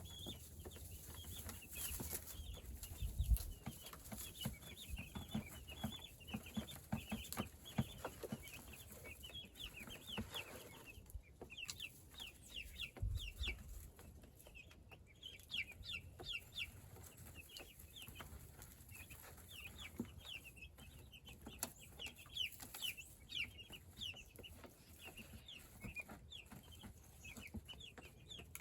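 A flock of meat chickens clucking and peeping, many short calls overlapping without a break. A low thump about three seconds in, and another about thirteen seconds in.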